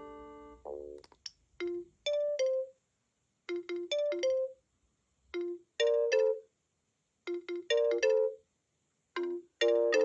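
Gigaset C630A cordless phone playing its ringtones. A held chord fades out, a quick run of rising notes follows, and then a new ringtone starts: a short phrase of quick electronic notes that repeats about every two seconds.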